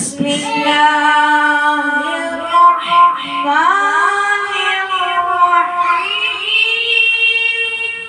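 A boy's voice reciting the Quran in melodic chant (tilawat), holding long ornamented notes. The pitch climbs about halfway through and rises higher again near the end.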